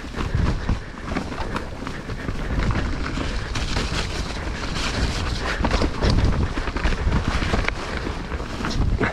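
Mountain bike riding down a trail of wet leaves, mud and light snow: the tyres rolling over the ground and the bike rattling with steady clicks and knocks, with wind buffeting the microphone.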